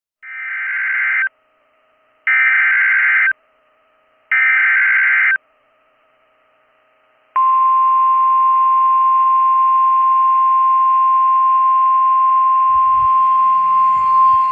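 Emergency Alert System SAME header: three one-second bursts of buzzing digital data tones, about a second apart. About seven seconds in, a steady single-pitch 1050 Hz NOAA Weather Radio warning alarm tone starts and holds.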